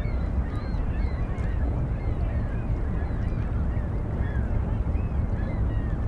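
Many seagulls calling, with short rising-and-falling cries overlapping one another, over a steady low rumble.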